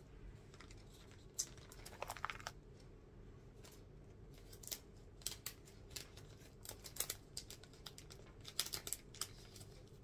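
Clear plastic sleeve pages of a folder being flipped and handled, with paper cut-outs shifting inside them: an irregular string of short crinkly clicks and rustles.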